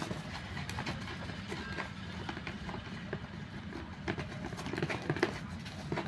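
Small clicks and rustles of a toy remote control and its cardboard-and-plastic packaging being handled, over a steady low background hum.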